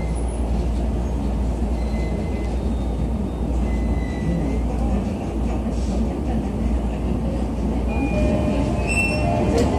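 Running noise heard inside a JR East E233-1000 series electric train car: a steady low rumble from the wheels and track. Thin whining tones set in near the end as the train slows into the station.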